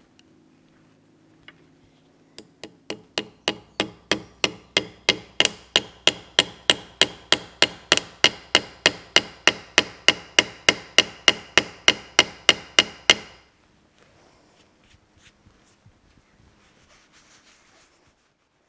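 Small hammer tapping a locating dowel pin into a machine gearbox housing: a steady run of sharp blows, about three or four a second, starting light and growing harder over the first few seconds, then stopping abruptly about 13 seconds in.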